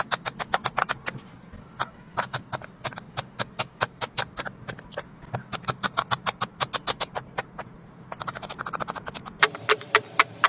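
Silicone pop-it fidget toys being popped by hand in quick succession: a rapid run of sharp pops, about six or seven a second, broken by a couple of short pauses.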